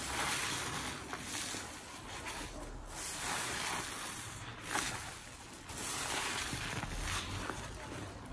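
Wet kitchen sponge squeezed and worked by gloved hands in thick detergent suds, squelching and hissing in several swells about a second long.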